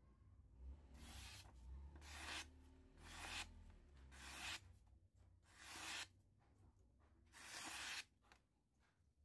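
Long handmade knife blade slicing through a sheet of hand-held paper, a sharpness test: six faint papery swishes about a second apart, each swelling and ending abruptly, the last the longest and loudest.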